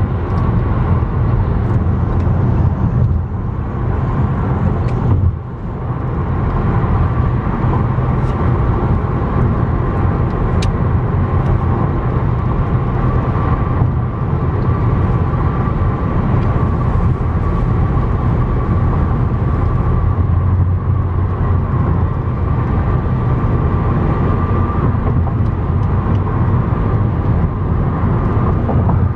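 Steady road and tyre noise inside a car cruising at highway speed: a low rumble with a faint steady whine over it. The level dips briefly about five seconds in.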